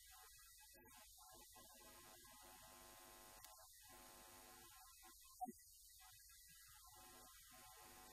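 Near silence: a faint, steady electrical mains hum, with one brief blip about five and a half seconds in.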